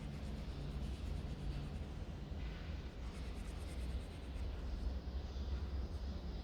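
Quick back-and-forth colouring strokes on the paper page of a book, in two spells, over a steady low hum.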